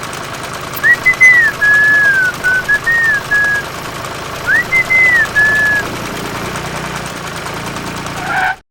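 A person whistling a short tune in two phrases of gliding notes, over a steady low hum. The sound cuts off abruptly near the end.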